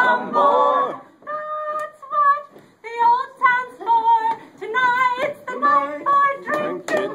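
Mixed group of men and women singing a sea shanty unaccompanied, several voices at once on held notes.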